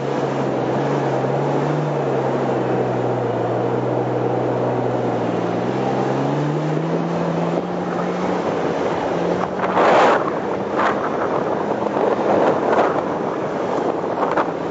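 Engine of a 4x4 driving on desert sand: its note sinks slowly, then climbs again about six seconds in. Short rushing bursts of noise come a little after halfway and again near the end.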